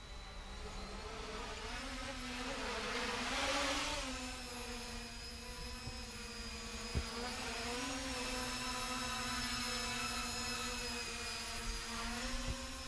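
Mini tricopter's brushless motors and propellers whining in flight, the pitch drifting up and down with the throttle. A louder rush of noise swells about three to four seconds in.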